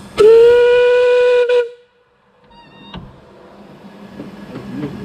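Steam locomotive whistle, Dolgoch's, giving one loud blast of about a second and a half. The pitch rises slightly at the start, then holds steady until it cuts off sharply. After a brief pause, the rumble of the narrow-gauge train running along builds up.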